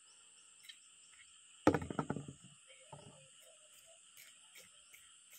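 A red plastic basin is set down hard on a concrete road about two seconds in, a loud clatter that rings briefly, followed by a smaller knock a second later. Insects drone steadily and high throughout.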